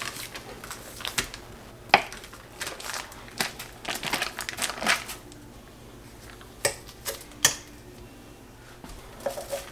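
Scattered light clicks, taps and plastic crinkles as cubed cream cheese is tipped from a plastic bag into a plastic-lined slow cooker and pushed in by hand. The clicks come thick in the first five seconds and thin out after.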